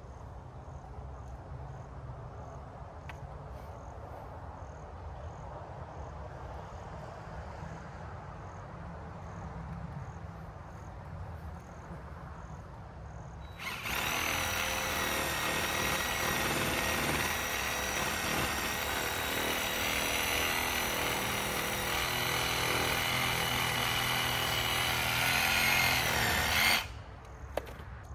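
Low, steady engine rumble of a working machine. About halfway through, a power saw starts suddenly and runs at high, steady speed while cutting a root into pieces. It rises a little near the end, then stops abruptly.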